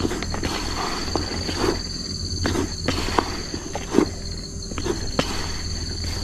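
Insects droning steadily at a high pitch, with soft, irregular knocks and squelches of handling close by.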